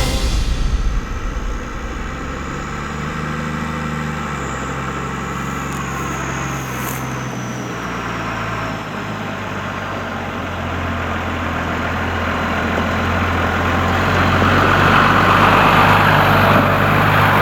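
New Holland M115 Turbo tractor's six-cylinder turbocharged engine running steadily, with a faint high whine that slowly falls in pitch over the first ten seconds or so; the sound grows louder in the second half.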